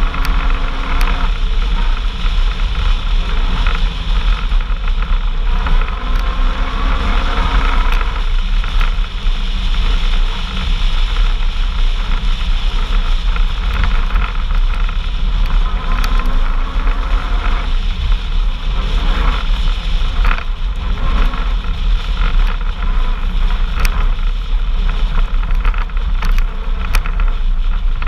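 Off-road vehicle driving: its engine runs under steady road and wind noise, and the engine pitch rises and falls a couple of times, about a third and two thirds of the way through.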